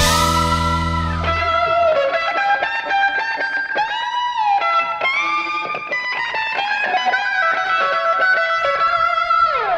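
Recorded rock music with a lead electric guitar playing bent and sliding notes, with no vocals. The low end drops away about two seconds in, and a slide down in pitch comes near the end.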